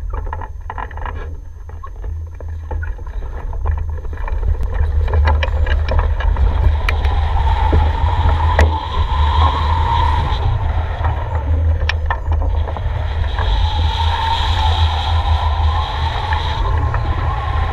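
Wind buffeting the microphone of a camera mounted on a hang glider's wing as it takes off and flies: a heavy steady rumble with a wavering rushing hiss that gets louder after a few seconds. Scattered clicks and knocks, most of them in the first half, come from the glider's frame and fittings.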